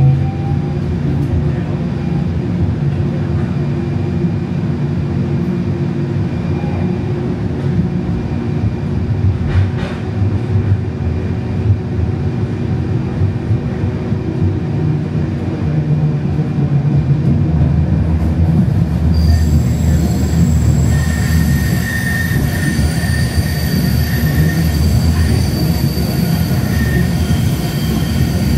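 Siemens S70 light rail train running, heard from on board: a steady rumble of wheels on the track. About two-thirds of the way through, a high, steady, multi-toned wheel squeal sets in over the rumble.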